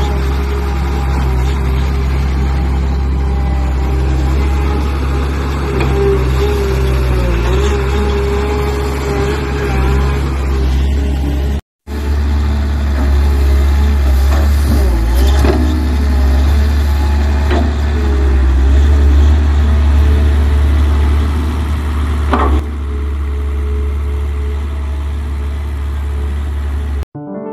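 Hydraulic excavator's diesel engine running steadily, with a few sharp knocks in the second half. The sound drops out for a moment about twelve seconds in.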